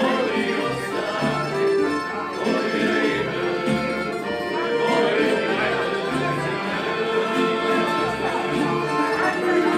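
Instrumental background music with sustained melodic notes over a low bass line that changes note every second or so.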